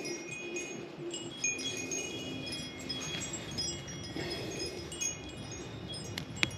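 Wind chimes ringing, many short high notes overlapping at random, with a sharp click near the end.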